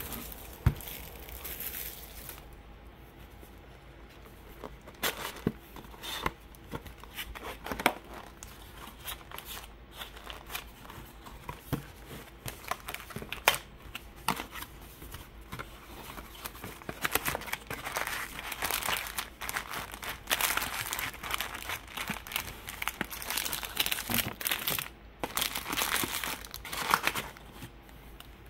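Plastic wrapping of a trading card hobby box and its packs being crinkled and torn open by hand. Scattered crackles at first, then steadier, louder crinkling through the second half.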